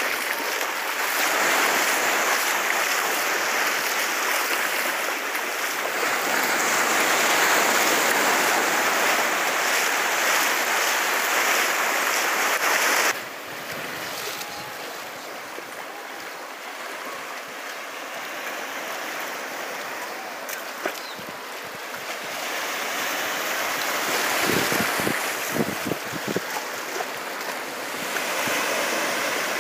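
Small waves breaking and washing up a sandy beach: a steady surf hiss that drops suddenly to a quieter wash about 13 seconds in. Near the end, wind buffets the microphone in gusts.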